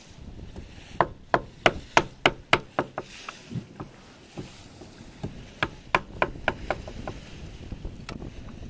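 Machete blade chopping sticks of firewood: sharp wooden strikes about three a second, in two runs with a pause between.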